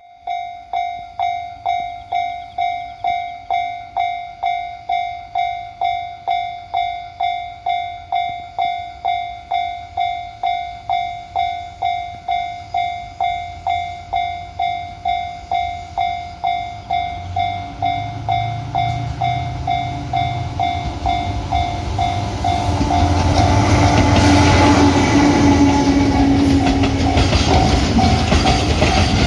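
Level crossing warning bell ringing, about two dings a second. About halfway through, a DF200 diesel-electric freight locomotive's engine rumble grows as it approaches and passes at low speed. Its freight wagons follow with a loud clatter over the rails while the crossing bell keeps ringing.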